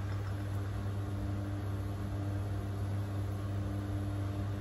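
Induction cooktop running under a pot at the boil: a steady low electrical hum with a constant whir of air over it.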